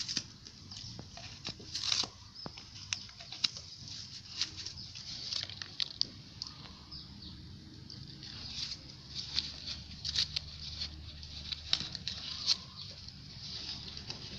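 A dog chewing and tearing at an instant-noodle packet, the plastic wrapper crinkling in irregular crackles and clicks.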